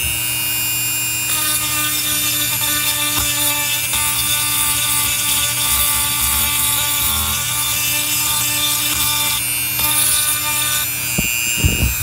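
Rotary tool running steadily at high speed with a high whine, its grinding bit cutting into the aluminium port of an 80cc two-stroke cylinder. A harsher grinding rasp comes in about a second in and runs until near the end, easing off briefly just before.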